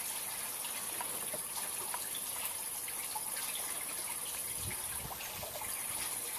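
Water in a spirulina growing pond trickling and splashing as it is stirred, a steady rush with small scattered splashes and a high, constant hiss over it. A few low thumps come about two-thirds of the way through.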